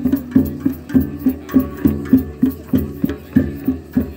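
Hand-held frame drums beaten in a steady rhythm, about three strokes a second, each stroke with a low ringing tone.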